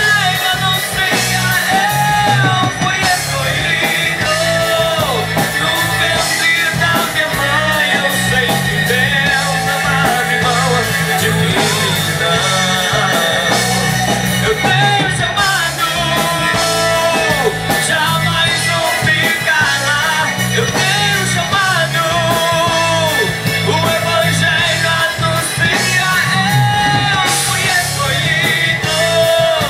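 A Christian rock band playing a song, with a lead voice singing over drums and guitars.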